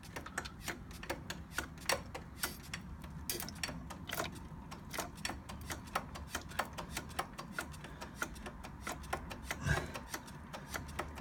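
Rapid, irregular light clicking and ticking, several clicks a second, while the rear brake on a motorcycle is pumped to bleed it and old fluid is pushed out through the bleed tube into the bottle.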